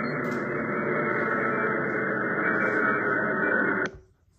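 A steady, loud rushing static-like noise, muffled and without any clear tone, that cuts off abruptly just before the end.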